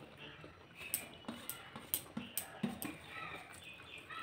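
Close-up hand-eating sounds: wet smacks and about half a dozen sharp clicks as fingers work rice and dal on a steel plate and the mouth chews, the clicks bunched between about one and three seconds in.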